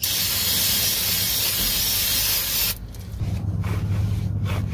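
Aerosol parts cleaner spraying in one continuous hiss onto the oily pinion end of a Ford 8.8 rear axle, degreasing around the leaking pinion seal; the spray cuts off about two and a half seconds in.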